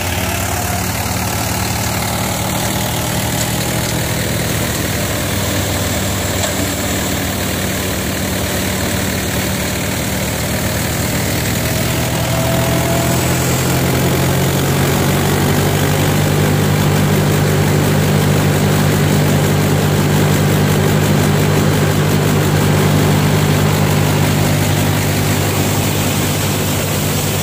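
Mahindra 475 DI tractor's four-cylinder diesel engine running steadily under load as it drives a thresher, over the thresher's constant rushing and whirring. About twelve seconds in the engine speeds up and gets louder, then holds at the higher speed.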